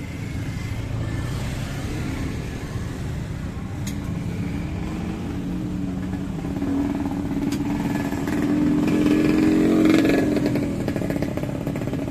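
A small motorcycle engine running on a busy street, growing louder as it passes close about nine to ten seconds in, then fading.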